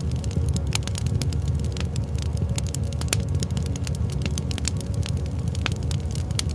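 Wood fire crackling, with frequent irregular sharp pops and snaps over a steady low rumble of burning.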